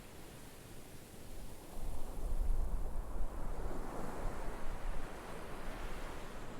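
Ocean surf washing on the shore, with a wave surging about four seconds in. A low wind rumble on the microphone comes in about two seconds in and eases off about three seconds later.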